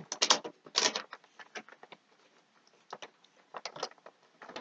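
A cardboard toy box being opened and its packaging handled by hand: a run of sharp clicks, taps and crinkles, thickest in the first second, then scattered, with a few more near the end.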